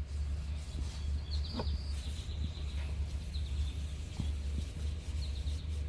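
A small bird chirping in short, quick trills of a few high notes every couple of seconds, over a steady low rumble.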